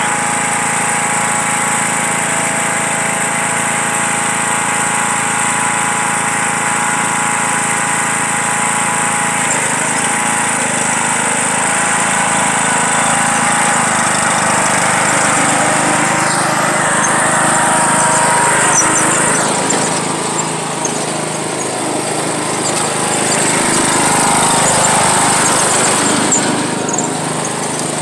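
A John Deere riding lawn tractor's engine running steadily under load while it tows a person on a board, with its level and pitch rising and falling a little in the second half.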